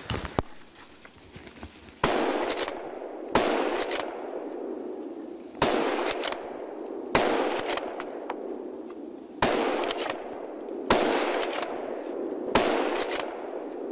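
A hunting rifle fired in quick succession at running wild boar: about seven sharp shots a second and a half to two and a half seconds apart, each followed by a long echo that dies away through the forest.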